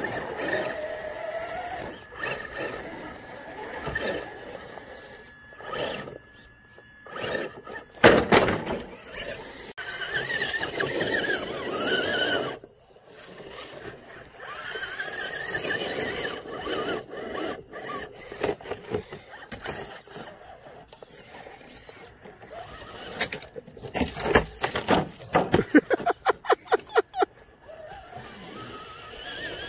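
Electric motors and gearboxes of RC rock crawlers whining as the throttle rises and falls while they climb rocks, with tyres scraping and knocking on stone. A quick run of sharp clicks comes near the end.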